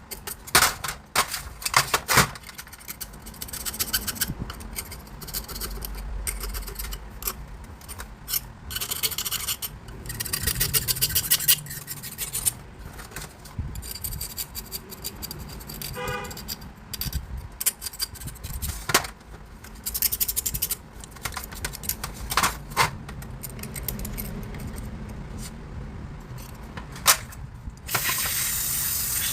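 Hand work on a car during repair: scraping and rubbing with scattered metal clinks and knocks, and a quick run of even clicks partway through. A brief squeak comes about halfway, and a steady hiss starts near the end.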